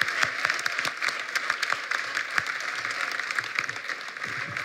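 A crowd applauding, many hands clapping at once, slowly tapering off toward the end.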